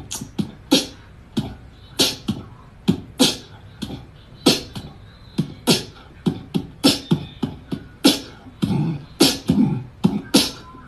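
Rhythmic beatbox-style beat of short, sharp hits, some deep thumps and some high clicks, about two to three a second.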